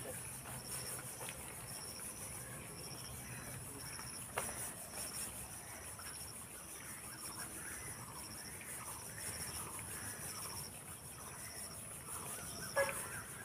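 Insects chirping: a high chirp repeating evenly over a steady, higher-pitched hiss, with one sharp knock about four seconds in.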